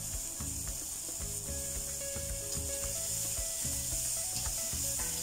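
Metal spatula scraping and stirring sliced onion and carrot around a stainless steel wok, over a steady sizzle of vegetables frying in oil.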